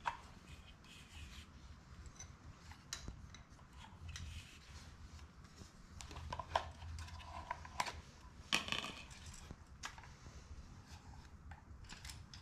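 Handling noise from a new gas water-heater control valve: irregular small clicks, scrapes and rustles of plastic protective caps and a washer being pulled off its threaded probe, with a few sharper clicks in the middle.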